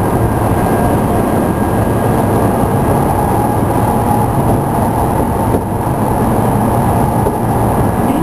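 Interior running noise of a Tokyu 5000 series electric train, heard inside motor car DeHa 5210: a loud, steady rumble as the train runs along the track.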